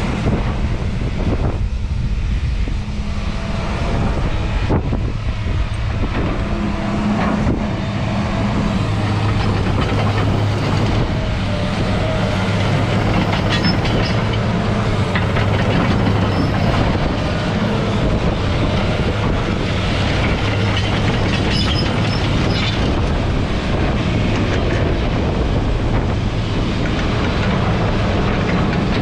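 New Holland E215 tracked excavator running, its diesel engine giving a steady low hum under a continuous metallic clatter and rattle.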